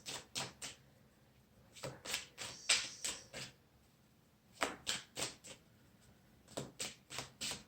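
Tarot deck being shuffled by hand: quick runs of card flicks and slaps in four short bursts, with near-quiet pauses between them.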